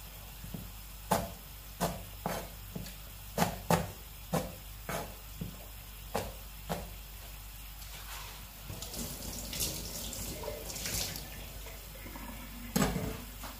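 Kitchen knife cutting green chillies on a plastic cutting board: sharp knocks of the blade on the board, one or two a second, over the first several seconds. Later comes a few seconds of hissing, then one louder knock near the end.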